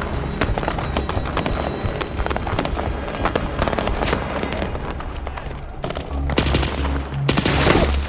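Rapid, overlapping rifle and machine-gun fire, many sharp shots a second, over a low droning music score. Near the end comes a louder rushing burst of noise.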